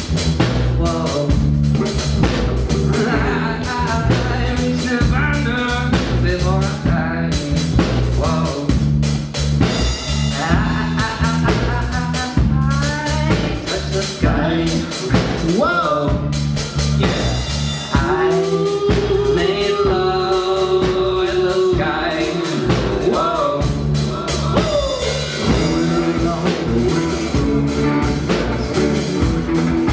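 Live rock band playing an instrumental passage: electric guitar lines that bend and slide over electric bass and a drum kit keeping a steady beat, with a long held note about two-thirds of the way through.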